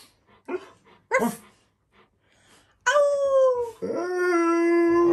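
Alaskan malamute howling: two short whines, then from about three seconds in one long drawn-out howl that drops slightly in pitch and carries on as a steadier, lower held note.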